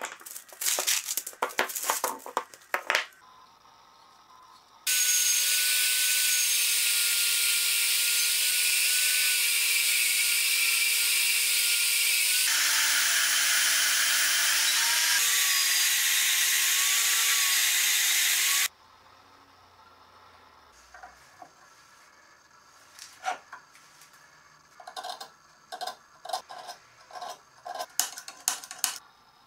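A bandsaw cuts through a block of burlap micarta, running steadily for about fourteen seconds and stopping suddenly. Before it come a few seconds of clicking and scraping, and after it scattered light clicks and knocks as the block is handled.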